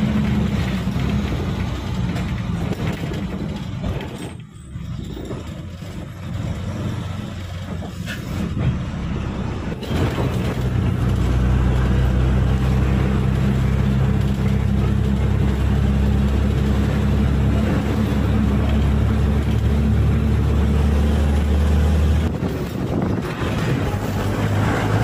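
Bus engine running as the bus drives along, heard from inside. The engine sound drops away briefly about four seconds in, then comes back as a louder, steady low hum from about ten seconds until it eases off near the end.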